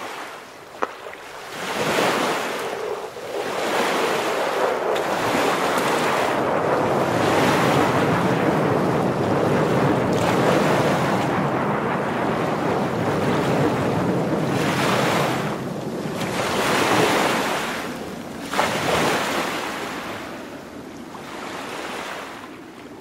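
Ocean surf: a rushing wash of waves that swells and falls back several times.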